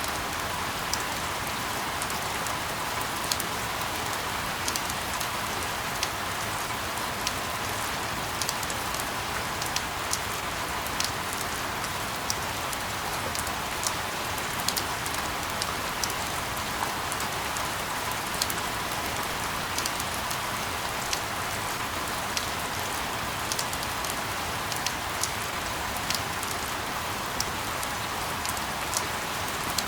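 Steady rain falling on a surface, an even hiss with irregular sharp drop ticks scattered through it.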